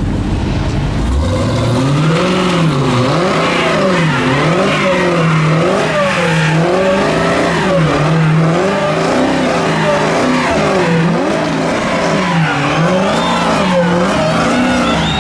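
Dodge Challenger doing a standing burnout. The engine climbs from idle about a second in and then revs up and down over and over, roughly once a second, as the rear tyres spin and squeal in a cloud of smoke.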